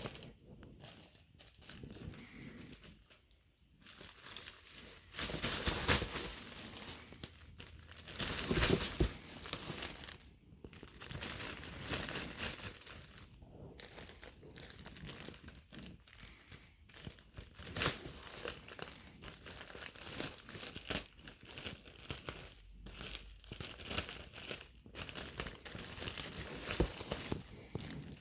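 Packaging crinkling and rustling as it is handled and unwrapped, in irregular bursts, with some tearing sounds.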